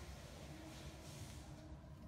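Faint swishing of a small brush worked over the cut end of a wooden handrail, twice about a second in, over a low steady hum.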